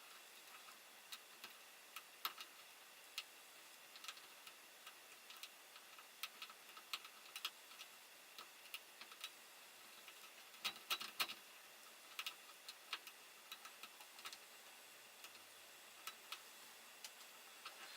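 Lock pick and tension wrench working the pin stack of an old padlock: irregular small metallic clicks and ticks, with a quick cluster about eleven seconds in.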